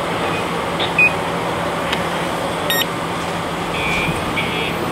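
Steady machinery drone with a constant low hum, and a few short high electronic beeps: one about a second in and two near the end.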